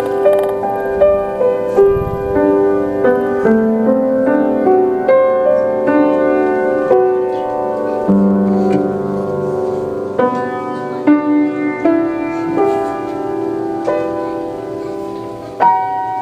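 Slow, gentle piano music: single notes and chords struck about once or twice a second, each ringing and fading out.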